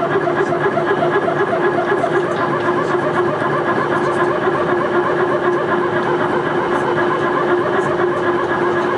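Cabin noise inside an Airbus A321 taxiing: a steady engine and air hum with a constant mid-pitched tone, and a fast pulsing that fades over the first few seconds.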